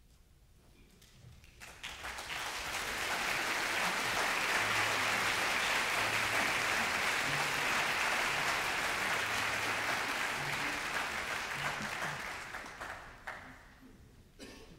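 Audience applauding in a concert hall at the end of a piece. The applause swells in over about two seconds, holds steady, then dies away over the last few seconds.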